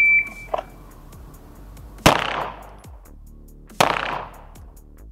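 A short high beep at the start, then pistol shots: two about two seconds apart, each with a ringing echo off the walls, and a third just at the end.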